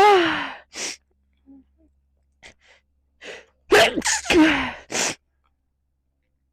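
A person's sneezing fit: a sneeze right at the start and a short breath after it. After a near-quiet couple of seconds, two more sneezes come in quick succession about four seconds in.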